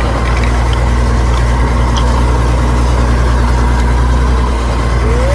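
An engine running steadily at idle, a deep even hum.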